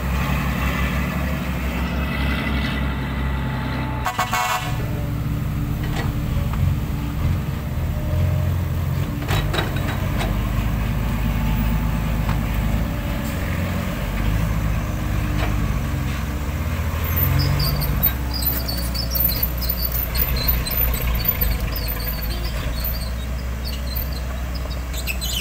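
Diesel engine of a loaded Hino dump truck running hard under load as it pulls away along a dirt track.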